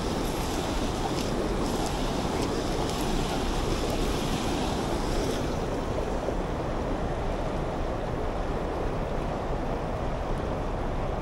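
Steady rush of fast-flowing river rapids. The brighter upper hiss of the white water drops away about halfway through, leaving a duller rush.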